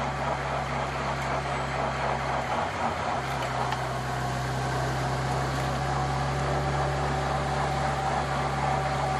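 Motorcycle engine running steadily under a constant rush of wind and road noise, heard from the camera motorbike following a time-trial cyclist. The engine's low hum breaks briefly about two and a half seconds in.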